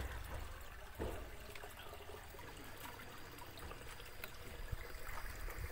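Faint, steady trickle of flowing water, with a soft thump about a second in.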